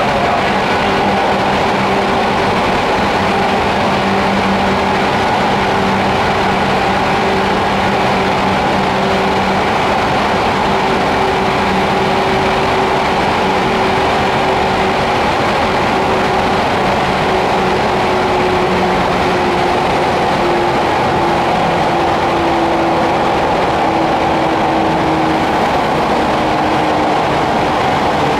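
Loud, steady running noise inside a 413-series electric train's motor car (MoHa 412) at speed: wheels and running gear on the rails with a traction-motor hum. The hum sinks slowly in pitch, a sign of the train gradually losing speed.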